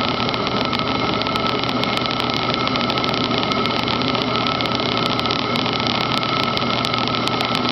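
Enco milling machine running steadily, its end mill cutting a slot in steel, with a constant whine over the cutting noise.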